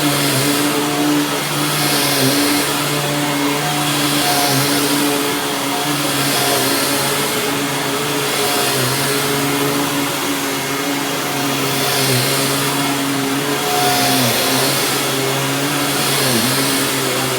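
Dirt Devil Ultra Vision Turbo upright bagless vacuum running steadily on carpet, its motor hum dipping briefly in pitch now and then, with the rush of air swelling and fading about every two seconds as it is pushed back and forth. The owner hears it as already starting to bog down, even on a new belt.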